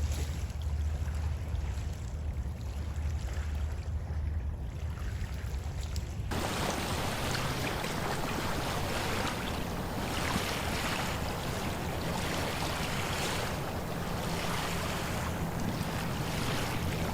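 Wind and surf noise on a beach: a low steady rumble, then an abrupt change about six seconds in to a fuller rushing hiss that swells and ebbs like waves washing in.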